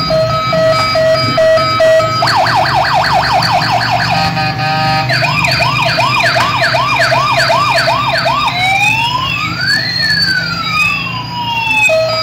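Toy police car's electronic siren cycling through its patterns: a steady tone, then a fast warbling yelp about two seconds in, a slower wail, and long rising and falling sweeps, with the steady tone coming back at the very end.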